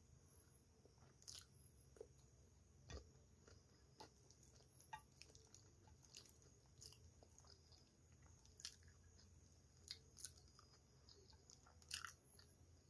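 Faint chewing and mouth sounds of a person eating pasta, with scattered short soft clicks.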